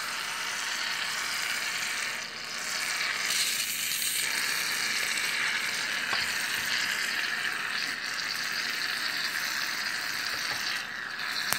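Aerosol can of shaving cream spraying foam in a long, steady hiss, with brief dips about two seconds in and near the end.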